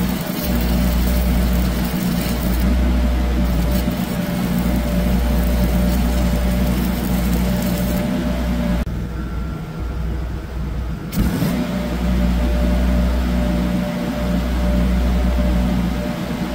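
Stick-welding arc crackling while a nut is welded onto a stripped bolt in an excavator final drive to extract it. The crackle breaks off for about two seconds around the middle, then resumes, over a steady engine hum.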